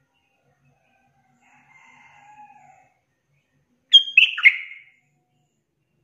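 Yellow-vented bulbul (trucukan) giving one short, bubbly burst of song about four seconds in, lasting about a second: a female's call to a male. A faint, drawn-out call comes before it.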